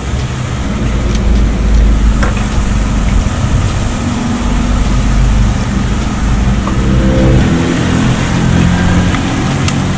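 A motor vehicle engine running close by: a deep, steady rumble, with a humming tone that steps up in pitch in the last few seconds.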